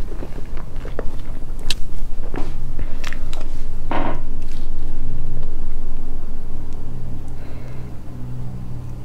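Close-miked eating sounds: soft chewing and mouth clicks. About four seconds in, a spoon scoops into a soft cream mousse cake, with a low steady hum underneath.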